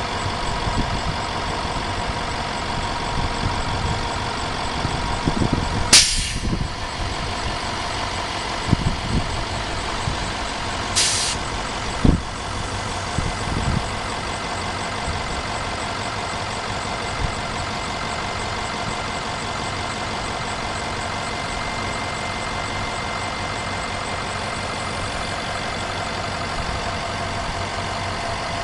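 International 4700's T444E V8 diesel running steadily while the boom's hydraulics move the bucket, with a few steady whining tones over the engine. Two short sharp hisses sound about six and eleven seconds in, the first the loudest moment, and a low thump follows near twelve seconds.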